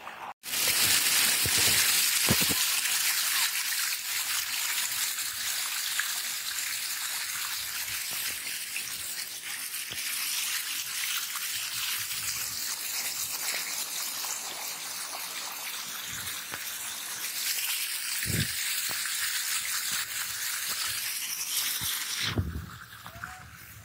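Heavy rain pouring down in a steady hiss, which drops away a couple of seconds before the end. A single low knock about 18 seconds in.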